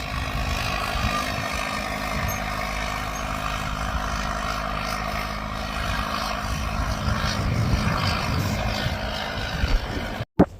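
John Deere crawler dozer's diesel engine running steadily as it pushes snow, with wind buffeting the microphone. The sound cuts off suddenly near the end.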